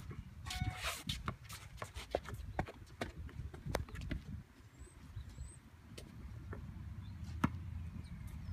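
A basketball bouncing on an outdoor court: one sharp bounce at the start, then scattered lighter knocks at uneven intervals, over a low rumble of wind.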